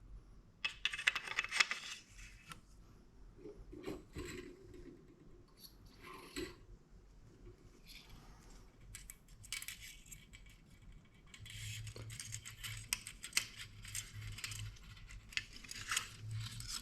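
Metal parts of a B&T KH9SD pistol clicking and scraping against each other as they are handled and slid back together during reassembly. The sounds are scattered light clicks and rubs, busier in the second half.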